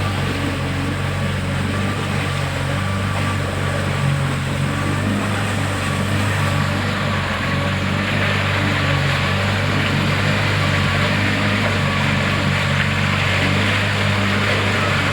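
A motorboat's engine running steadily at cruising speed, a constant low hum, with a rushing hiss that grows louder about halfway through.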